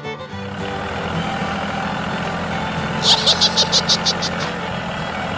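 A vehicle engine running steadily with a low hum. About three seconds in there is a quick run of about eight sharp, high chirps, roughly six a second.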